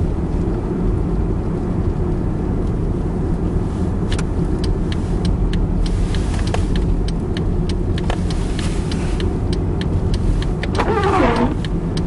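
Steady engine and road noise heard inside a car driving on a snowy road. From about four seconds in, a turn signal ticks regularly, about three ticks a second. Near the end there is a short sound that falls in pitch.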